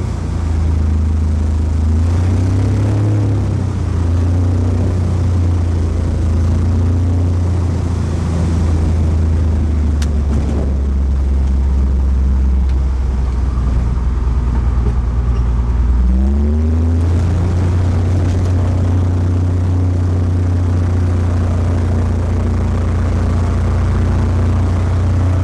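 Barrows Bearhawk's piston engine and propeller running at low power through touchdown and the rollout on a grass strip, heard inside the cabin. About 16 seconds in the engine speed dips, then rises as power is added, and settles into a steady run.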